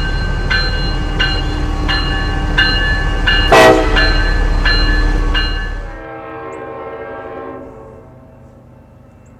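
A freight train passes close with a heavy low rumble while a bell strikes about every 0.7 s, and there is one brief loud burst near the middle. About six seconds in the sound drops suddenly to a locomotive's chord horn sounding at a distance for about a second and a half, as the train approaches a grade crossing.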